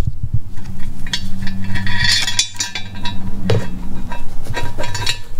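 Scattered metallic clinks and knocks as an aluminum intake manifold and its gasket are handled and shifted, over a steady low hum.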